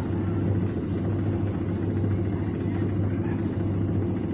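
Videocon V-NA-51 washing machine running its wash with water in the tub: a steady motor hum with water churning. The machine is washing again after a rat-chewed wire was rejoined.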